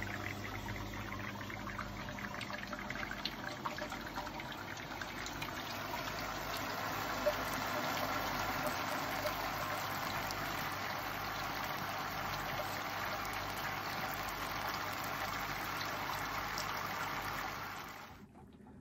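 Water spraying from a perforated copper ring and splashing onto the walls and false bottom of a stainless steel brewing kettle, a steady hissing splatter with a low electric pump hum under it. It grows louder a few seconds in and stops abruptly near the end.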